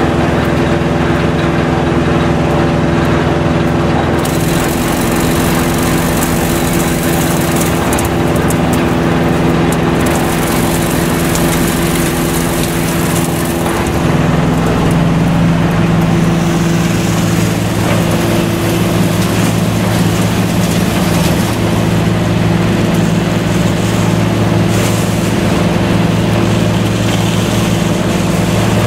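Komplet compact recycling machine running steadily while it processes material into fine grit: a loud hum of several steady tones with a hiss above it. The hum's tone shifts about halfway through.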